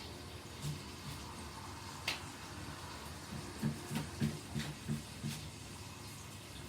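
A kitchen knife being worked down through a whole pineapple on a cutting board: faint scrapes and clicks, then a run of short dull knocks from about three and a half to five and a half seconds in.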